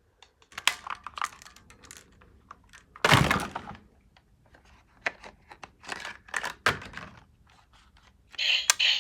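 Plastic toy guns being handled, making scattered clicks and knocks, with one louder bang about three seconds in. A harsher noisy sound starts near the end.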